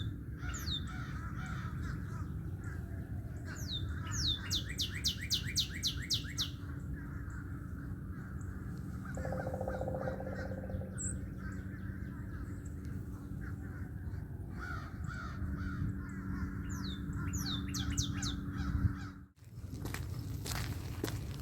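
Crows cawing among other birds, with a quick run of about a dozen high, falling call notes a few seconds in. Footsteps crunch near the end.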